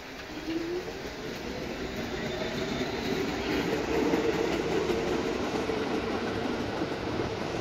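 R46 subway train pulling into the station: wheels rumbling on the rails with a steady whine as it slows, growing louder over the first few seconds.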